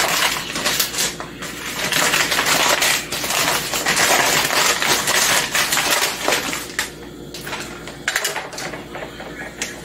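Flour being scooped from its bag with a measuring cup and tipped into a plastic mixing bowl: the bag rustling and crinkling, with sharp taps of the cup. It is busiest for about the first seven seconds, then quieter.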